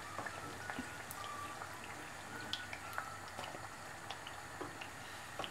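Kachoris frying in hot oil on their second fry to golden brown: a faint, steady bubbling hiss with scattered small pops and crackles.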